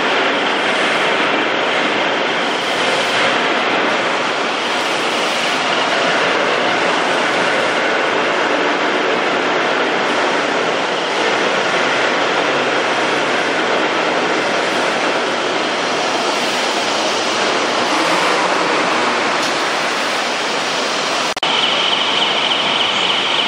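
BDG-150 rail-powered transfer cart running along its rail track, a loud steady mechanical noise. About 21 seconds in the sound changes abruptly and a steady high-pitched whine joins in.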